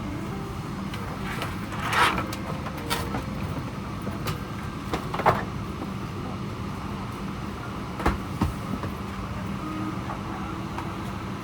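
Steady cabin hum of a Boeing 777-300ER parked at the gate, with a few scattered clicks and knocks.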